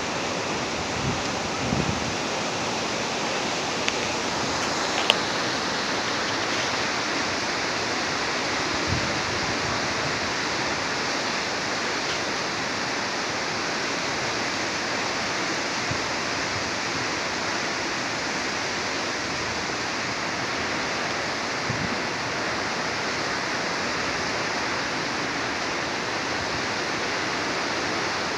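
Steady rushing noise of a storm, the wind and rain blending into one even roar with no break, and a couple of faint knocks a few seconds in.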